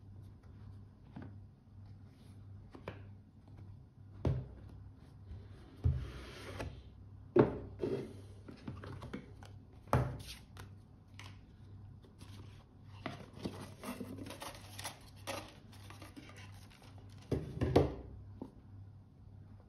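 Cardboard and paper being handled while a watch box is unpacked: a lid sliding off, paper rustling and scraping, and irregular knocks of the boxes set down on the table, the loudest a few seconds in and a pair near the end.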